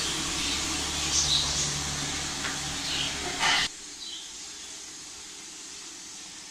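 Steady hiss from an idli steamer heating water on a gas stove, which cuts off abruptly a little past halfway. After that comes a quiet background with a few faint high chirps.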